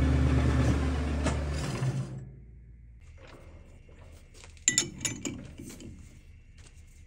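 Music fades out, then a three-jaw metal-lathe chuck is opened by hand with its chuck key: scattered light metal clicks, and a quick cluster of sharp clinks about two-thirds of the way through as the key seats and turns.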